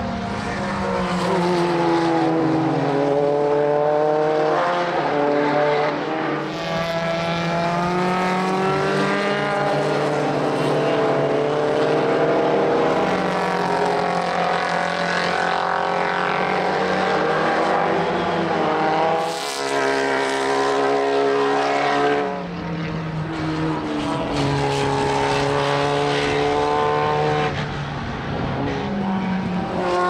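Historic racing car engines under hard acceleration past the trackside. The engine notes climb through the gears, breaking briefly at each upshift, as several cars go by in turn. Partway through, the pitch falls away as a car passes and brakes.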